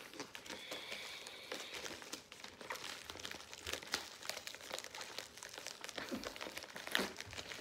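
Paper and plastic packaging crinkling and rustling as it is unwrapped by hand, a quiet, steady run of small crackles.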